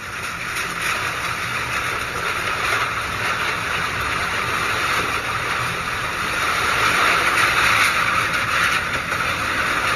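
Typhoon wind and heavy rain, a steady rushing noise that swells a little after about seven seconds.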